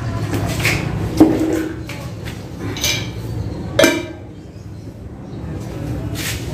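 Metal paint tins knocking and clinking as they are handled and set down: a sharp knock with a short ring about a second in, a lighter clink near three seconds and another knock near four seconds.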